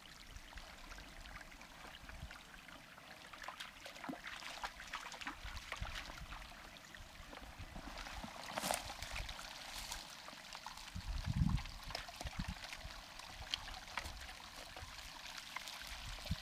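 Small mountain creek trickling over rocks, steady throughout, with scattered footsteps and knocks on stone and a few low thumps a little past the middle.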